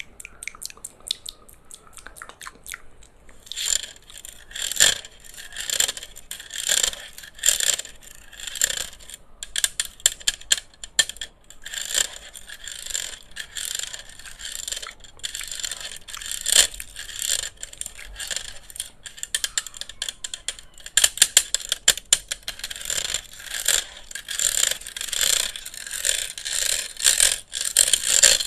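ASMR triggers on a handheld electric fan: quick tapping, clicking and scratching on the fan, sparse at first, then dense and continuous from about three and a half seconds in.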